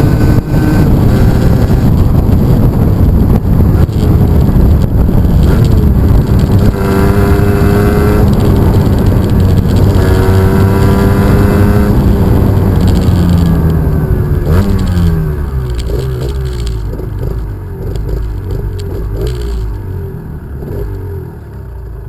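125 cc motorcycle engine heard from onboard at speed, with wind rumbling over the microphone; the engine pitch climbs twice as it pulls through the gears, then drops about two-thirds through as the bike slows, and the sound grows quieter toward the end.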